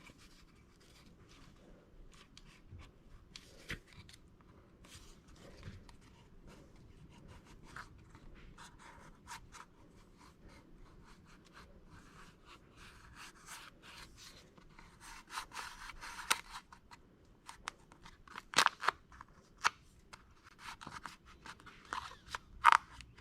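Vinyl wrap film crinkling and crackling as it is handled, stretched and lifted off the surface, in a run of irregular sharp little crackles that get louder and busier in the second half.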